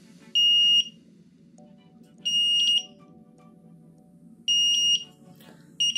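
A 5-volt active buzzer on an Arduino obstacle detector beeping: four short, high-pitched beeps of about half a second each, one to two seconds apart. It sounds because the ultrasonic sensor detects an object in front of it, within its 25 cm range.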